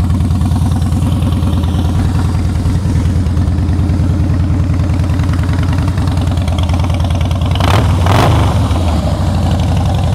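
2012 Harley-Davidson Heritage Softail Classic's 103 V-twin idling steadily through Vance & Hines exhaust, with a brief louder burst about eight seconds in.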